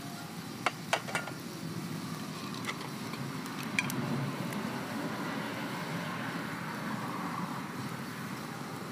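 A few sharp clinks of kitchen utensils and dishes, three close together about a second in and one more near four seconds, over a steady low background noise.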